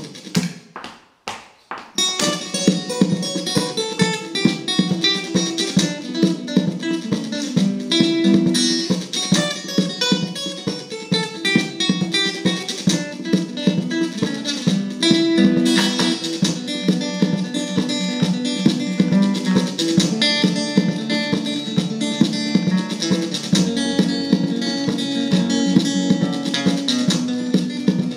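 Solo cutaway acoustic guitar played in a Spanish, flamenco-like style. After a couple of sharp strikes and a short gap, a fast, unbroken run of fingerpicked notes starts about two seconds in.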